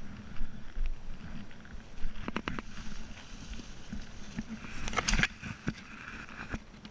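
Footsteps on a dirt forest trail, with brush rustling and a few sharp clicks and snaps: a quick run of them a little after two seconds in and a denser cluster around five seconds in.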